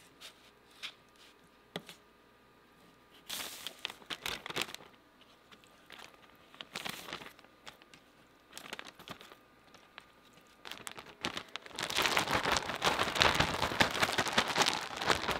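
A few light clicks and rustles as fish chunks are cut and dropped into a plastic zip-top bag, then, about three-quarters of the way in, the bag of coating mix is shaken hard, its plastic crinkling loudly and continuously to coat the fish.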